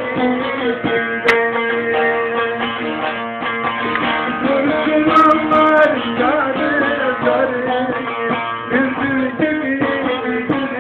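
Bağlama (long-necked Turkish saz) played solo: a plucked melody over steady ringing drone notes.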